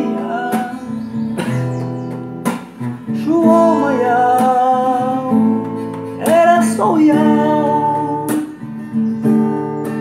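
Acoustic guitar strummed in a slow, regular pattern under a voice singing long, drawn-out vowel notes.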